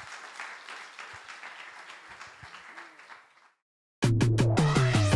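Audience applauding, fading out about three and a half seconds in. After a brief silence, music starts abruptly about four seconds in, with sharp percussive hits and steady bass notes.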